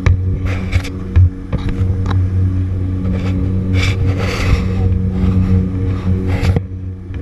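Steady drone of a Twin Otter's turboprop engines heard inside the cabin, with several brief rushes of fabric rubbing and jumpers' gear brushing against the camera.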